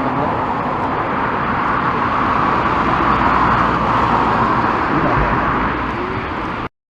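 Jet airliner engine roar as a plane passes, swelling slightly and then easing, cut off suddenly near the end.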